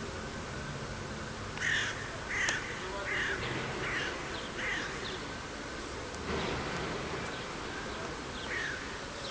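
A bird cawing: a run of six short, harsh calls, each falling in pitch, about one every two-thirds of a second, then a single call near the end.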